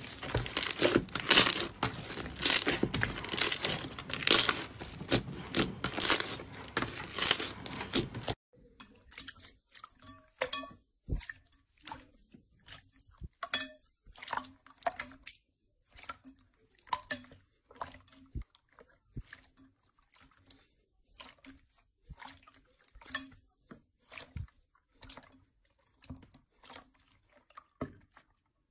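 Hands squishing and pressing slime: a dense run of crackling and popping for the first eight seconds or so, then, after a sudden change, sparse separate squelches and pops as a glossy clear slime is kneaded and stretched.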